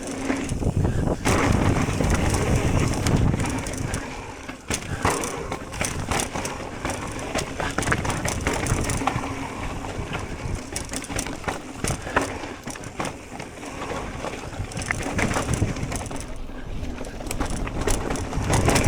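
Mountain bike riding over a dirt trail: tyres on loose ground and the bike and chain rattling over bumps, with many quick knocks and clicks and a low rumble throughout.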